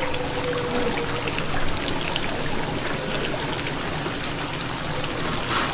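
Steady sizzling hiss of oil in a tempura deep-fryer, with a sharp knock near the end.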